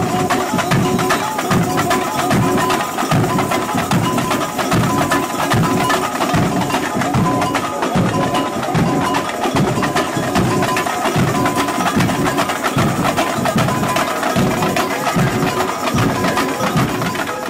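Samba parade percussion playing a steady beat: bass drums about twice a second, with higher drums and bells over them and a melody carried above.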